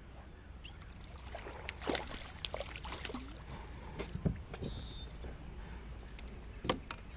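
Scattered light clicks and knocks of handling gear aboard a plastic fishing kayak, with faint water sounds.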